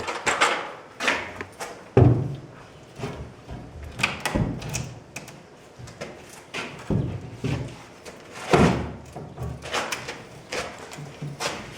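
Irregular knocks and thumps of hands-on building work, with boards and tools being handled and set down; the heaviest bang comes about two seconds in and another near the end of the first nine seconds.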